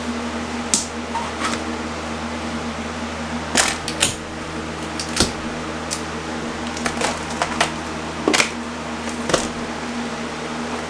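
Box fan running with a steady hum while a wallpapered wall panel is pried and pulled off the studs, giving a string of irregular sharp cracks and snaps.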